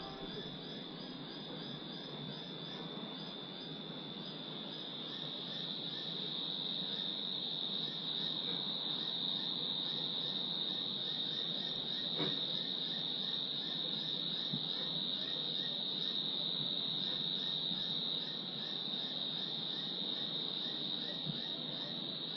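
Crickets trilling in a steady, continuous high-pitched chorus, growing slightly louder about six seconds in.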